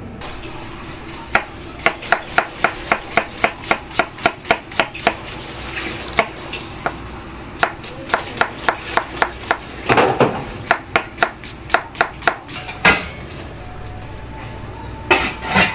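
Kitchen knife chopping an onion on a wooden cutting board: a steady run of sharp knocks, about three a second, with a few short pauses. Near the end comes a brief burst of louder knocks.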